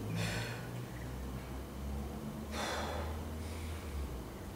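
A man's two short, forceful breaths, one at the start and one about two and a half seconds in, taken with the effort of pressing heavy dumbbells up from the floor.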